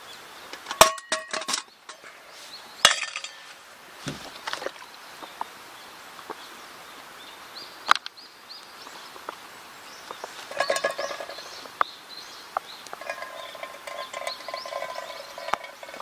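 Metal camping cookware clinking and ringing as a pot, mug and lid are handled and set down on a stone, in several separate clinks. Near the end a longer stretch of metal rubbing and ringing comes from the pot.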